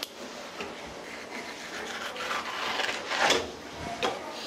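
Fillet knife scraping and rasping along a cutting board as it runs under a sea bass fillet. The scrape swells to its loudest about three seconds in, and there is a short knock about four seconds in.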